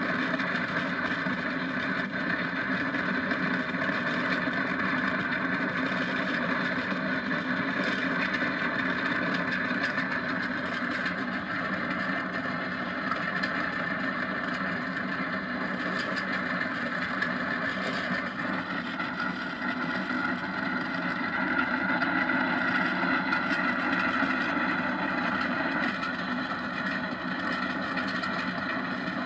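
Steady running noise of a go-kart travelling fast down an asphalt road, heard from on board the kart, unbroken throughout.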